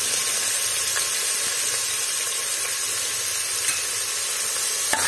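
Chopped red onions sizzling in hot oil with whole spices in a cooking pot, a steady even hiss.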